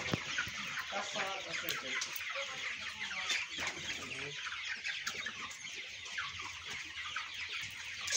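A flock of young white broiler chickens calling all at once, a dense chatter of many overlapping high peeps and clucks.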